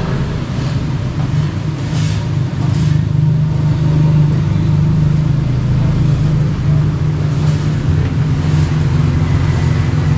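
A vehicle engine running steadily nearby, a low even drone that drops slightly in pitch about eight seconds in, with a few faint clicks over it.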